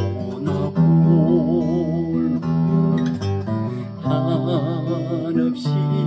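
Acoustic guitar playing an instrumental passage of a slow Korean pop ballad: a melody of held notes with wavering vibrato over sustained low notes.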